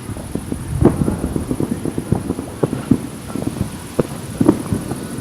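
Fireworks and firecrackers going off all around: a dense, irregular string of short bangs and pops, several a second, mostly dull and low.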